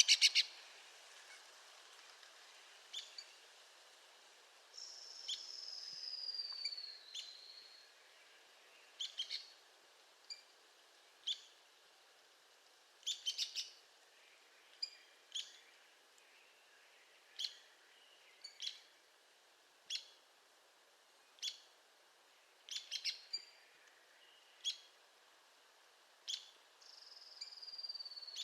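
Arizona woodpecker calling: short, sharp high call notes every second or two, some single and some in quick clusters of two or three. Twice, a longer whistle slides down in pitch over about two seconds.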